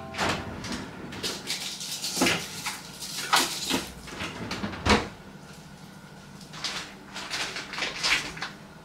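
Kitchen handling noises at the refrigerator: a door opening and shutting, and packages being rummaged and taken out. These come as a string of knocks, clicks and rustles, with a heavier thump about five seconds in and a quicker run of small knocks near the end.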